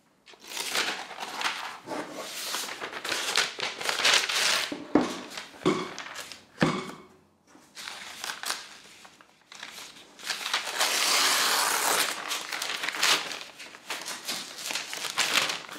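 Protective wrap sheet crinkling and rustling as it is peeled off a MacBook Pro's aluminium lid. There are a few light knocks midway, and the rustling is loudest in a longer stretch about two-thirds of the way through.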